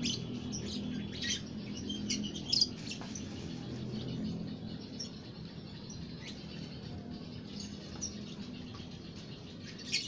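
Fischer's lovebirds chirping: short, sharp, high chirps, a quick cluster in the first three seconds, then sparser, with one loud chirp near the end.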